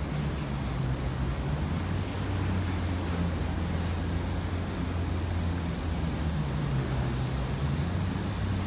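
Ferry engine running with a steady low drone, over wind and harbour water noise.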